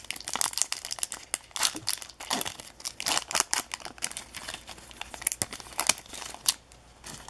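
Plastic wrapper of a 2016-17 O-Pee-Chee hockey card pack being torn open and peeled back by hand, crinkling in rapid, irregular crackles that thin out near the end.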